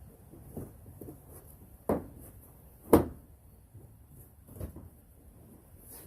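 A panel being lined up and knocked into place: a few light knocks, then two sharp, loud knocks about two and three seconds in.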